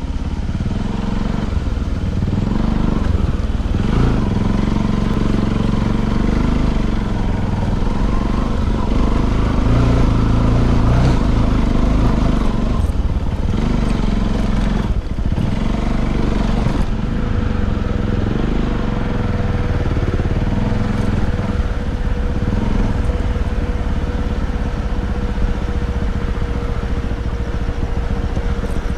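Motorcycle engine running as it rides along, under a steady low rumble of wind on the action camera's microphone.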